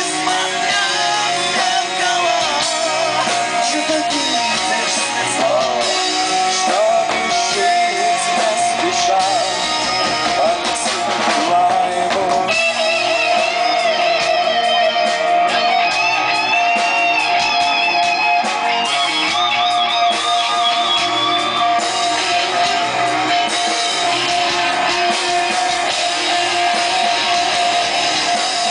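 Rock music led by guitar plays steadily throughout, with a wavering high melody line coming in about halfway through.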